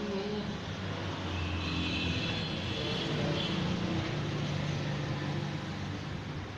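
Steady motor-vehicle engine noise with a low hum that shifts in pitch, and a faint high tone for about two seconds near the middle.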